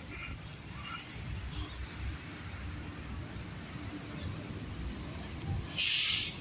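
Outdoor ambience: a low, uneven rumble with a few faint high chirps, and a short, loud hiss about six seconds in.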